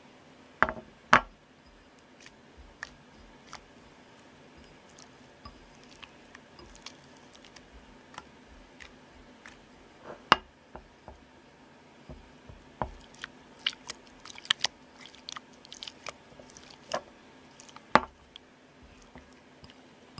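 Borax slime being squeezed and kneaded by hand in a ceramic bowl: irregular sticky clicks and pops. A few are much louder sharp snaps, and a quick run of small crackles comes in the second half.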